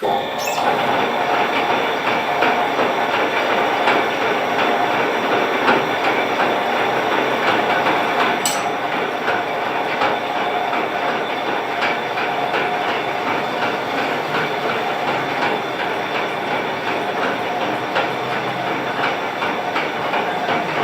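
Metal lathe running while facing a car cylinder head: a steady machine hum with a fast, rattling clatter, starting suddenly at the beginning.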